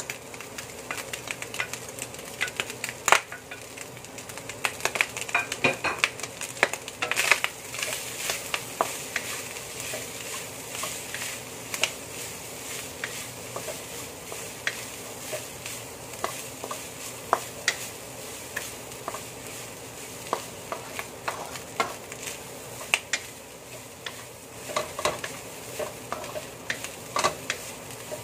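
Julienned carrots and ground meat sizzling in a wok while a wooden spatula stirs and scrapes them, with frequent irregular knocks of the spatula against the pan.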